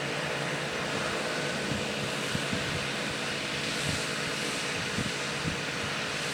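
Steady rumble of distant traffic, with a few soft low thumps.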